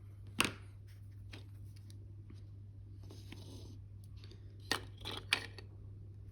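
Sprue cutters snipping small plastic model parts: three sharp clicks, one about half a second in and two close together near the end, with a short rustle of handled plastic in between.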